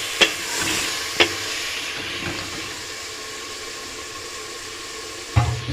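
Onion, tomato and spice masala sizzling in oil and water in a pressure cooker, with a steady hiss that slowly fades. A stirring spoon clicks against the pot twice in the first second or so, and there is a dull thump near the end.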